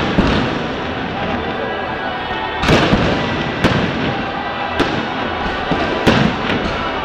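Aerial fireworks shells bursting: a series of sharp bangs at uneven intervals, loudest about three seconds in and again a little after six seconds.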